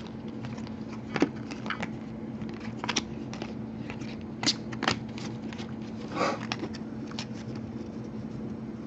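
Panini Prizm trading cards being handled and flipped through one by one: scattered light clicks and slides of card stock, over a steady low hum.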